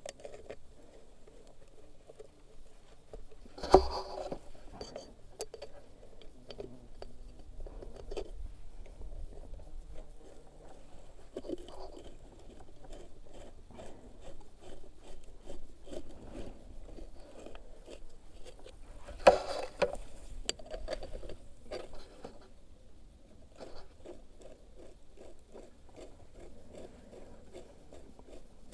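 Scraping and handling noises from hand work on parts, with many small clicks and two sharp knocks about fifteen seconds apart.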